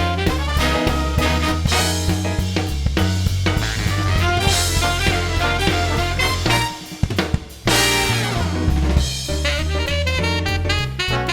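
Background swing-jazz music with drums and brass, dropping briefly for about a second near the middle before the band comes back in.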